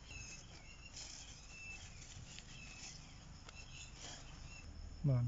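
Crickets chirping faintly in short repeated chirps, over light rustling and a few small clicks. A brief voice cuts in near the end.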